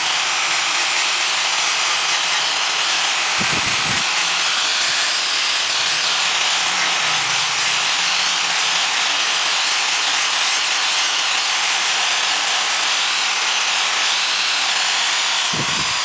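Wood being cut or sanded by a power tool: a steady, even rasping noise with no rhythm. Two brief low bumps come about four seconds in and near the end.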